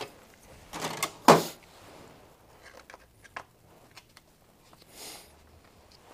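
Hand-work on a plastic cover on a workbench: a short clatter of knocks about a second in, then a few small clicks as a screwdriver backs screws out, and a soft scrape of the part moving near the end.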